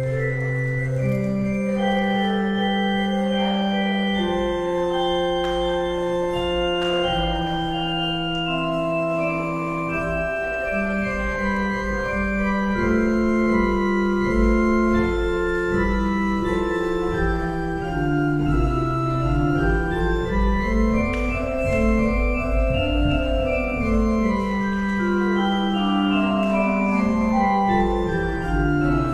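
Casavant pipe organ playing three-part contrapuntal music on 8' stops (Swell, Great and Pedal): long held notes in one part against moving lines in the others. About two-thirds of the way through, one line climbs and then falls back in steps.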